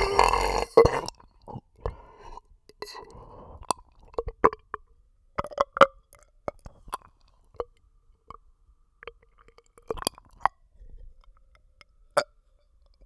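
A person's burp, a loud voiced belch that ends about a second in, followed by scattered short wet clicks and smacks.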